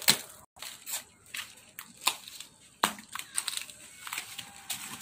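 Lump charcoal and dry leaves crunching and clattering on the ground in scattered sharp crunches, the loudest about two and three seconds in.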